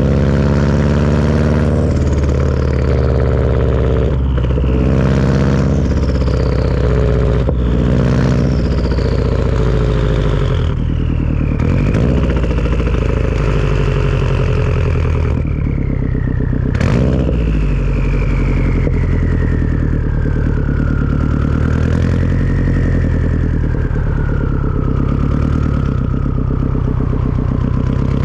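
Turbocharged Subaru engine running through a Tomei turbo-back exhaust, with a high turbo whistle over the engine note that slides slowly down in pitch, breaking off and restarting several times. A sharp click about two-thirds of the way through.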